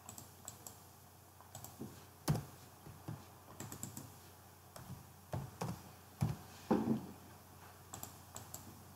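Computer keyboard typing: scattered soft key taps, with a few louder taps about two seconds in and several more in the second half.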